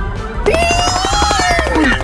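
A long cartoon sound effect: one smooth pitched tone that rises slightly, holds, then drops away near the end, as the character dashes off. It plays over background music with a steady drum beat.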